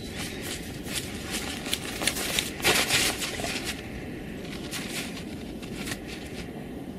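Two dogs digging and nosing into crusted snow and frozen ground: irregular crunching and scraping, loudest about three seconds in.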